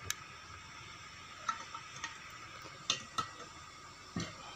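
Sharp metallic clicks, about six spread irregularly across a few seconds, each with a brief ring, as the teeth are snapped off a thin strip of handsaw-blade steel clamped in a bench vise.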